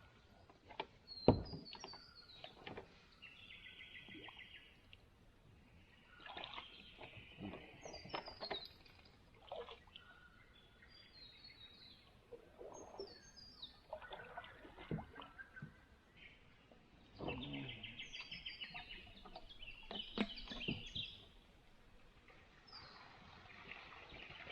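Birds calling: short falling chirps and quick buzzy trills, repeated every few seconds, with scattered clicks and knocks in between.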